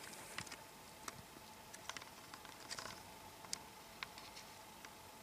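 Faint, irregular clicks and ticks, about one a second, over quiet room tone with a faint steady hum.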